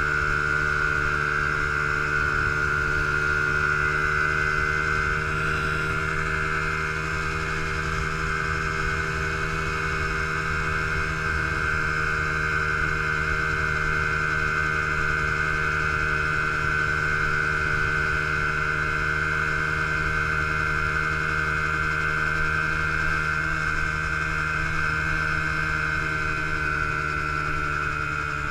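A 2003 Honda XR50 mini bike's small single-cylinder four-stroke engine running under way at a steady cruising throttle, its pitch holding nearly constant throughout.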